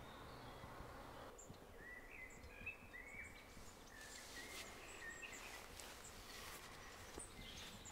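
Faint birdsong in woodland: short, high chirping notes over a near-silent background.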